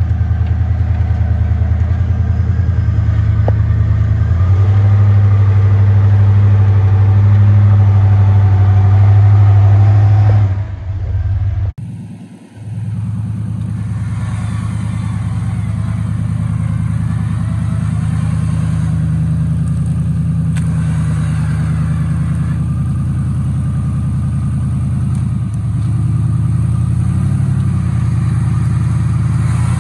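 Rock-crawler buggy engines running under load as the buggies climb a rock ledge, with revs stepping up and falling back. About eleven seconds in the sound dips and cuts, then a second buggy's engine takes over.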